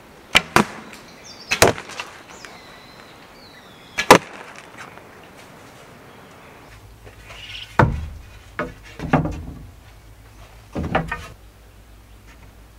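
Homemade wooden longbow being shot three times: each shot a pair of sharp cracks close together, string release and arrow hitting a cardboard target. Later come a few duller knocks and rustles.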